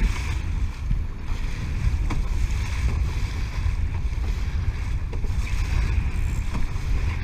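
Wind buffeting the microphone as a low steady rumble, over the rush and slap of choppy water along the hull of a Laser dinghy under sail.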